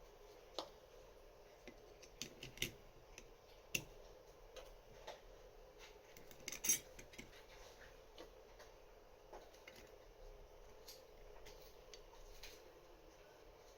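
Small metal parts of a Lagard 2200 lock, its discs and spacers, clicking and clinking as they are handled and fitted back together by hand: scattered sharp clicks, the loudest about halfway through.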